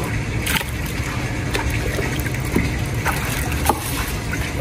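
Steady spray of water washing the outdoor unit of a split air conditioner during its service clean, over a steady low rumble, with a few faint knocks.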